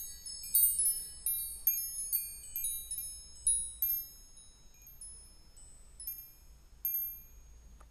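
Wind chimes tinkling: high, ringing notes struck in quick clusters at first, then fewer and further apart, dying away near the end.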